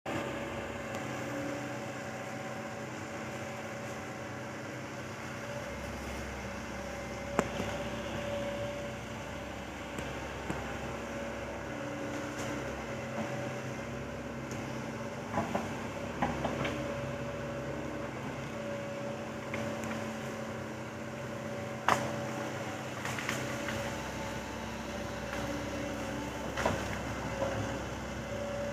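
Excavator engine running steadily, with a few sharp clanks scattered through, about five in all.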